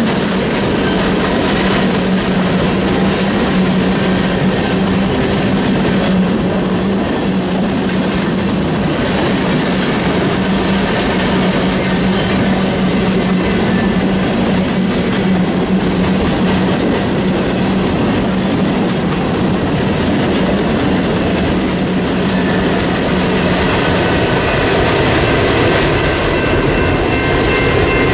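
Freight cars of a long mixed manifest train rolling past: a steady rumble and rattle of steel wheels on rail, with clicking over rail joints. A few faint, thin high tones come in near the end.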